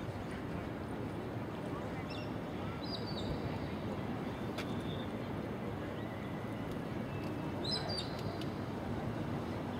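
Outdoor arena ambience: a steady noisy background with faint distant voices, and a few short high chirps about two to three seconds in and again near the end.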